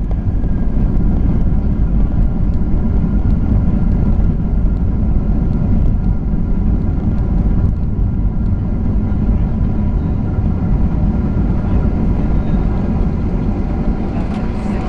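Cabin noise inside a Boeing 737-800 during the landing rollout: a loud, steady low rumble from the wheels on the runway and the CFM56 engines, with a faint engine whine above it.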